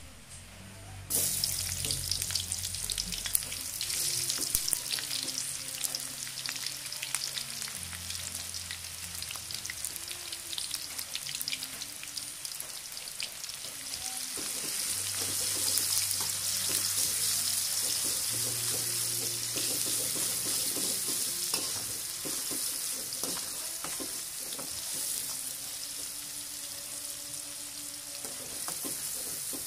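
Sliced shallots and spice paste sizzling in hot oil in an aluminium wok, starting suddenly about a second in as they go into the pan. A spatula scrapes and taps against the wok as they are stirred.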